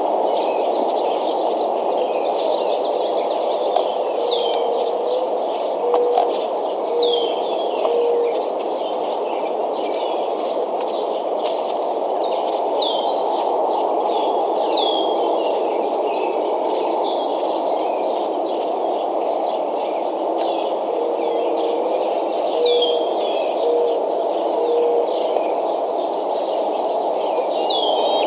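Nest-cam outdoor ambience: a steady rushing background with wild birds calling over it, short high chirps that drop in pitch, repeated every second or two. Twice a low cooing phrase of a few notes comes through.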